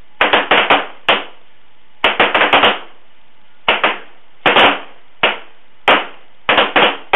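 A firing line of 1911 and M9 pistols (.45 ACP and 9mm) shooting together: about twenty sharp shots in irregular clusters, several shooters' shots landing close together and overlapping.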